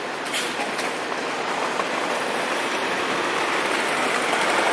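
PCC streetcar rolling along street rails, getting louder as it approaches, with two short clicks from the wheels about half a second in.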